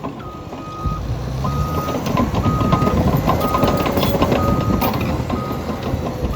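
Caterpillar D6N bulldozer's backup alarm beeping steadily, about once a second, over the diesel engine, which gets louder about a second in: the dozer is in reverse.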